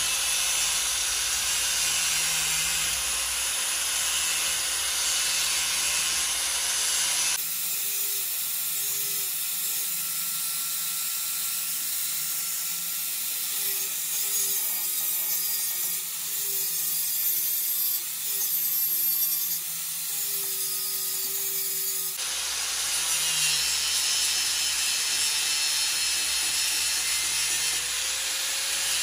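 Steady abrasive scraping of metal being worked. The sound changes abruptly about seven seconds in, turning thinner with a faint wavering tone, and changes back about twenty-two seconds in.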